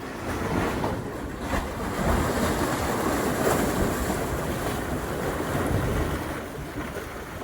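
Sea waves surging and washing against a rocky shoreline, with wind buffeting the microphone. The wash swells about half a second in and eases near the end.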